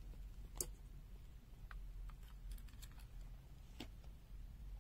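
A few faint, sharp clicks as multimeter test probes and leads are handled and touched to a reference resistor's terminals, the two clearest about half a second in and near the end, over a steady low hum.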